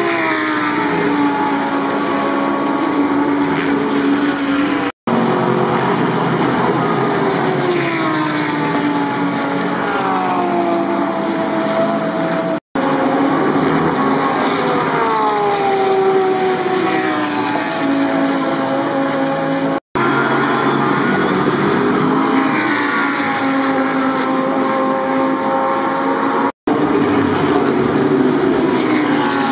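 GT3 race cars passing one after another at speed, each engine note falling in pitch as the car goes by. The sound drops out for an instant four times, where the clips are cut together.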